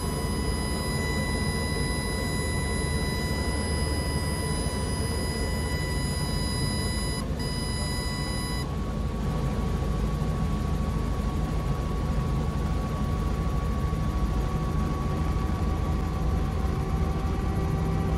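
Robinson R44 low-rotor-RPM warning horn sounding a steady high tone, broken briefly about seven seconds in, then cutting off about nine seconds in. The horn is on because rotor RPM is being held low in an autorotation to stretch the glide, and it stops once RPM is back in range. Under it, the helicopter's rotor and engine rumble steadily in the cockpit, growing a little louder near the end.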